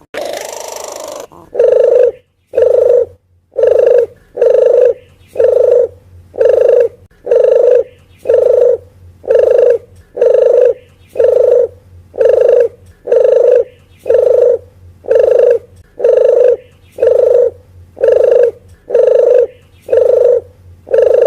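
Puter geni (Barbary dove) cooing: short, hollow, low notes repeated evenly a little faster than once a second, after a longer drawn-out call at the very start. It is a lure call for drawing wild doves in.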